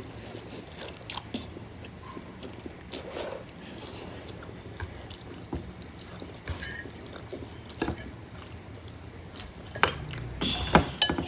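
A person eating spicy instant noodles close to the microphone: soft chewing and wet mouth clicks, with a cluster of louder clicks and knocks near the end.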